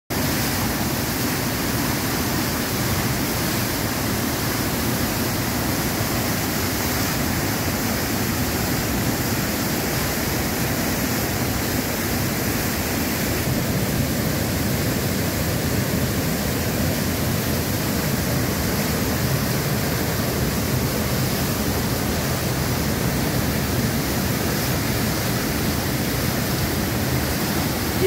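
Rain-swollen waterfall: a torrent of muddy floodwater crashing and churning in a steady, unbroken rush.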